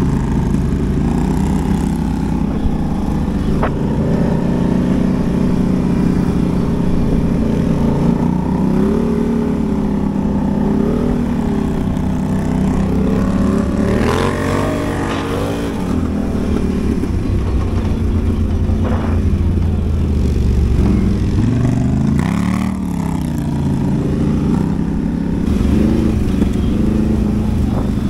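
ATV (quad bike) engines running, the engine note rising and falling as the throttle is worked, most noticeably about halfway through and again about three quarters of the way in.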